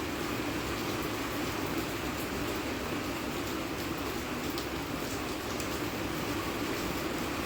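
Steady rain falling: an even hiss with a few sharper drop ticks scattered through it.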